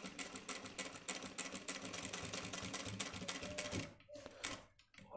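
Industrial sewing machine stitching fast and evenly as it runs an edge stitch along the fabric, stopping about four seconds in, followed by a couple of brief short runs of stitches.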